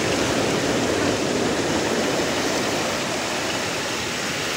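Ocean surf breaking and washing in shallow water, a steady rush of foaming waves.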